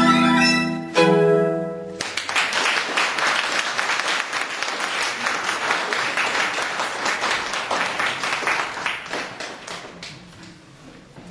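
Violin playing its last few notes, ending on a held note about two seconds in, followed by audience applause that dies away near the end.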